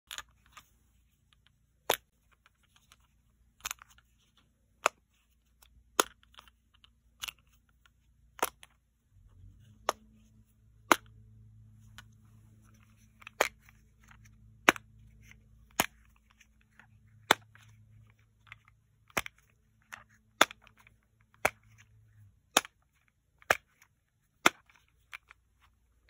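Silicone bubbles of Christmas tree and snowman Simple Dimple fidget toys being pressed one at a time, each giving a sharp pop. About twenty pops come at roughly one a second, unevenly spaced.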